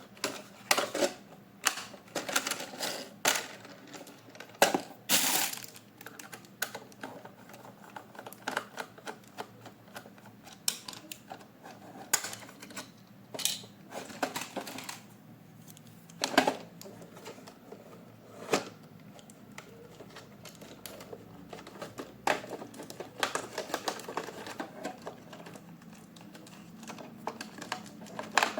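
Plastic toy parts and packaging being handled: irregular clicks and taps, with a few short rustles, such as around five seconds in.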